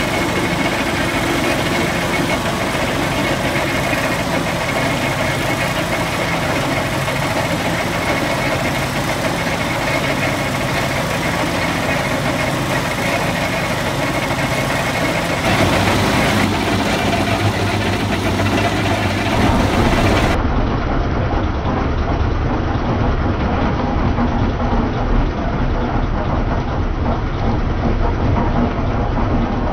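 Tow-behind concrete mixer running steadily, its drum turning and churning wet concrete. The sound gets a little louder and deeper about halfway through.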